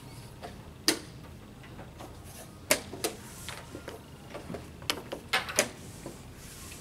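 Sharp clicks and knocks of wooden chess pieces set down on a wooden board and of the chess clock being pressed in fast blitz play: one click a little under a second in, two more about three seconds in, then a quick run of about five near the end.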